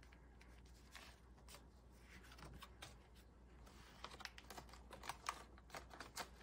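Faint clicks and light rustles of paper bills and a plastic cash-envelope binder being handled, with more clicks in the second half.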